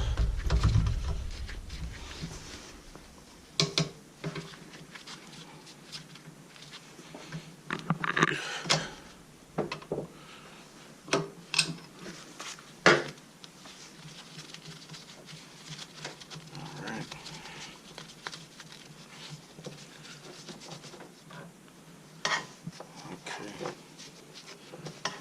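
Scattered metallic clinks and knocks from a wrench working loose a 9/16 oil feed line fitting on a turbocharger, with quiet pauses between the strokes.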